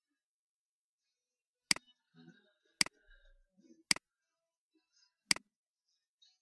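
Four sharp computer mouse clicks, about a second apart.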